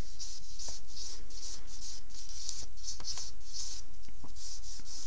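Charcoal stick scratching across drawing paper in quick short strokes, about two to three a second, as the edges of a drawing are worked in. A steady low hum runs underneath.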